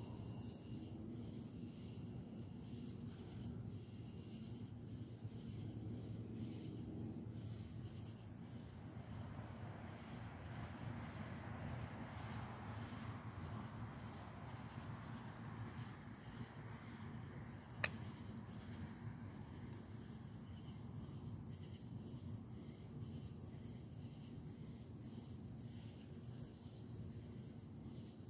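Crickets chirping steadily at night over a low background rumble, with one sharp click a little past the middle.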